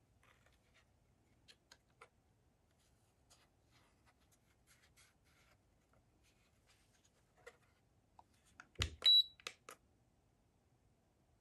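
Plastic housing of a handheld JAXWQ stud scanner being handled, with light clicks and rubs. About nine seconds in, a cluster of sharper clicks comes as its buttons are pressed, with one short high beep from the scanner.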